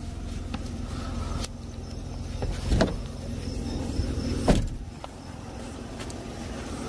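Low steady rumble of a car driving, with two sharp knocks about three and four and a half seconds in; the rumble fades after the second knock.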